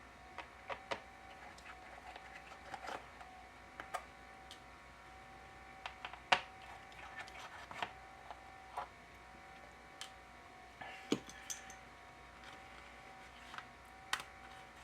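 Scattered small clicks and taps of a pentalobe screwdriver and tiny screws against a MacBook Pro's aluminium bottom case and a magnetic screw mat as the bottom-plate screws are taken out. The sharpest tap comes about six seconds in, another about eleven seconds in, over a faint steady whine.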